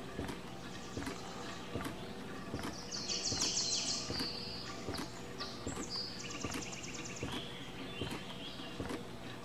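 A pulse generator knocks steadily, about once every 0.8 seconds, over a steady low hum. About three seconds in, and again around six to seven seconds, a hummingbird gives high-pitched, rapid, buzzy chatter.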